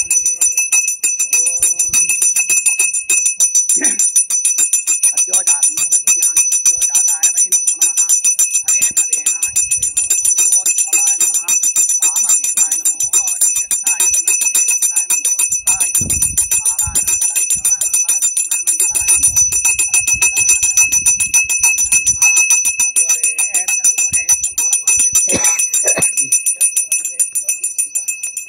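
Brass puja hand bell (ghanti) rung rapidly and without a break, a steady bright ringing.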